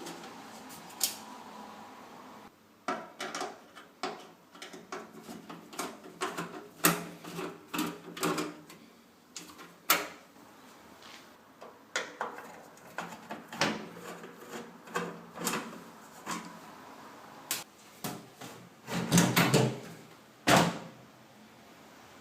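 Clicks, knocks and rattles of hard parts being handled, opened and set down during a microwave turntable-motor repair. A steady hum stops abruptly in the first few seconds, and a cluster of heavier knocks comes near the end.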